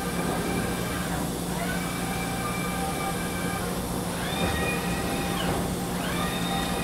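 Amada Wasino TS126 CNC surface grinder running, its table traversing back and forth. Each stroke brings a drive whine that rises, holds and falls, repeating every one to two seconds and higher pitched in the later strokes, over a steady machine hum.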